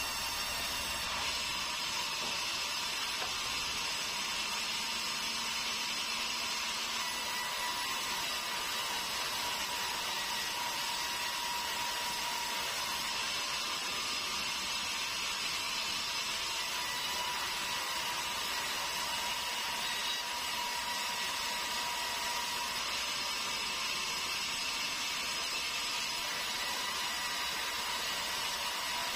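Sawmill saw running steadily while cutting meranti timber: an even, continuous hiss with a faint steady whine.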